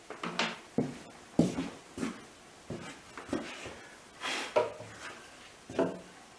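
Wooden knocks, clunks and rubs as a wooden drill-guide strip is handled and set down on a cedar tabletop, about a dozen separate short knocks with the loudest about a second and a half in.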